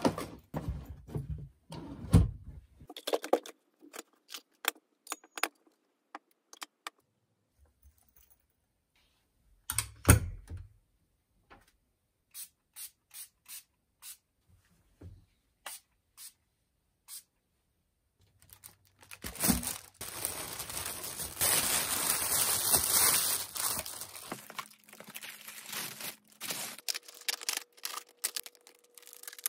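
A string of small clicks and knocks from household things being handled and put away, with louder thumps about two seconds and about ten seconds in, and several seconds of rustling and scraping starting about twenty seconds in.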